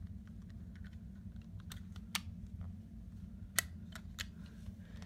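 A few scattered light plastic clicks and taps from handling a wireless alert module and its battery cover, the sharpest about three and a half seconds in, over a steady low hum.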